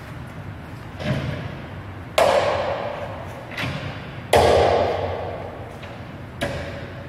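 Five knocks from the membrane frame of an Ormamacchine Duplex 40/13 thermoforming press as it is handled along its edge. The second and fourth are the loudest, each ringing on for about a second.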